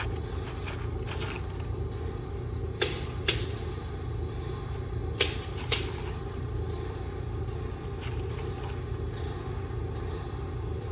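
Steady low rumble, with four sharp knocks a few seconds in, in two pairs about half a second apart, from hand work on an asphalt shingle roof.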